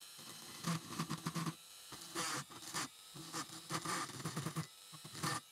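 Small handheld rotary tool running with a drill bit, its motor humming as the bit grinds into a mounting post on a diecast model car's metal body. It stops and starts a few times, with scratchy grinding while the bit bites.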